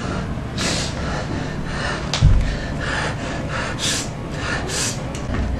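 A man breathing hard in quick, ragged gasps, about two a second. A dull thump sounds a little over two seconds in.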